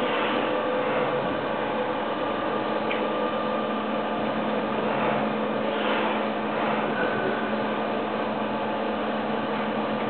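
Automatic cookie depositor running steadily, depositing swirled dough onto its conveyor belt: a constant machine hum with a few steady tones.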